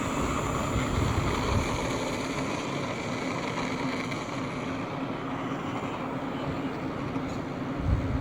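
Electric motor and propeller of an E-flite Extra 300 RC aerobatic plane running with a steady drone, its higher part fading about halfway through. Wind buffets the microphone in low rumbling gusts, strongest about a second in and near the end.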